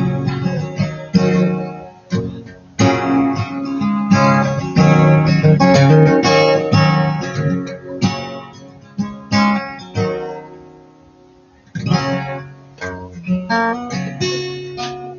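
China-made Thompson-clone acoustic guitar being strummed, chords struck and left to ring. The playing dies away about ten seconds in and starts again a couple of seconds later.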